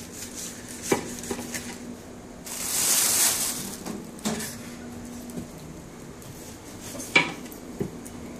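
Fillet knife cutting through a pineapple on a wooden cutting board: sharp knocks of the blade and fruit on the board, a rasping cut lasting about a second near three seconds in, and the loudest knock about seven seconds in.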